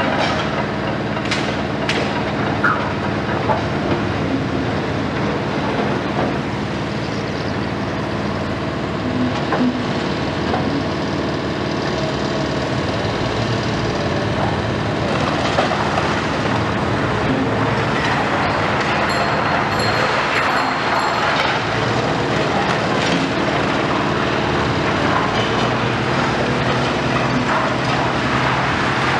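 Komatsu PC490 long-front demolition excavator running its diesel engine under load as its demolition tool breaks into the building's roof and upper wall, with steady crunching and rattling of masonry and debris and a few sharp cracks early on. A short run of faint high beeps comes about two-thirds of the way through.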